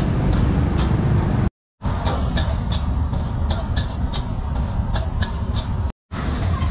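Stir-frying in a wok: a metal spatula clacks against the pan in a quick, even rhythm of about three to four strokes a second over a steady low rumble. The sound cuts out briefly about one and a half seconds in and again near the end.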